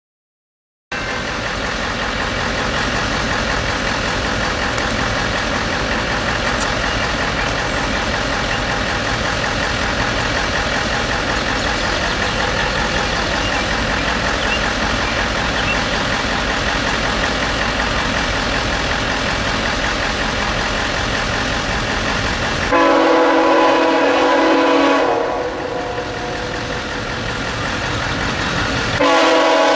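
Steady rumbling noise, then a diesel locomotive's horn from an approaching train: one loud long blast about 23 seconds in, fainter for a few seconds, then loud again near the end.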